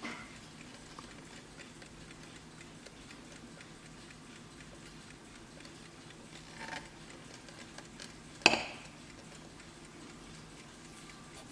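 Vintage Rhythm 51111 alarm clock ticking quietly, with one sharp click about three-quarters of the way through.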